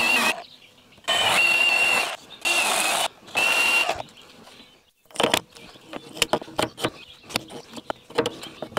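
A handheld power tool whines in three or four short trigger bursts, each cut off sharply, as wood is worked around a piece of metal embedded in a walnut log. These are followed by scattered light clicks and knocks.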